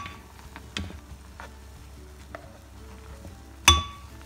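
A spatula stirring shredded hash-brown potatoes in a pot of boiling water, milk and butter: wet stirring with a few light ticks, and two sharp knocks of the spatula against the pot, one at the start and a louder one near the end.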